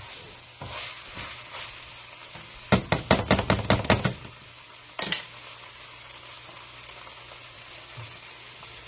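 Shrimp and tofu frying in a pan, with a steady sizzle. About three seconds in comes a quick run of sharp knocks, with one more a second later.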